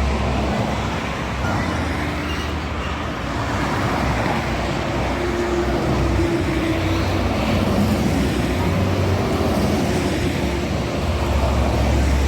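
Highway traffic passing at speed: steady tyre and road noise over the low rumble of engines, with no multi-tone horn sounding.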